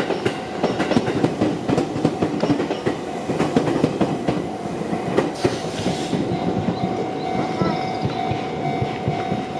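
Gotemba Line electric train passing over the level crossing, its wheels clattering rapidly over the rail joints, with a thin steady whine appearing in the second half.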